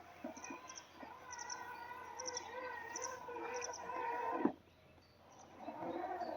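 Robot lawn mower's electric motor whining steadily, then cutting off abruptly about four and a half seconds in; a shorter, lower whine starts up again near the end.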